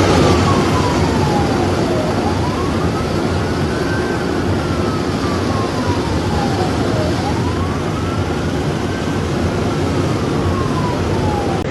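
Emergency vehicle siren wailing slowly, its pitch sweeping down and back up in long cycles of about five seconds, over steady rumbling noise.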